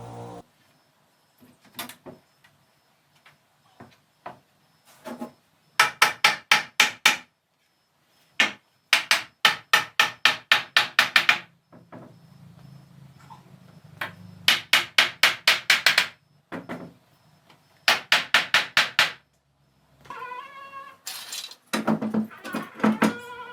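Hammer striking wood in four quick bursts of rapid blows, about six a second, with pauses between the bursts.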